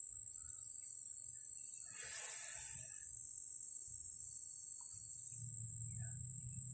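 Insects, likely crickets, trilling in one steady high-pitched tone, with a brief rush of noise about two seconds in and a low hum coming in about five seconds in.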